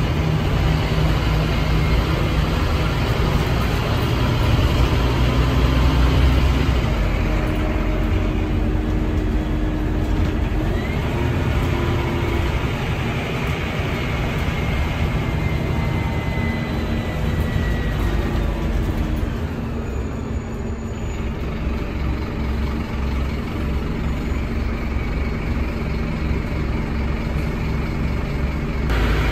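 Scania N310UA city bus with a ZF Ecomat automatic gearbox, heard from inside the passenger cabin: the engine and drivetrain run steadily as the bus travels, with a low rumble throughout. It is louder for the first several seconds, then quieter, with a faint whine rising in pitch through the middle.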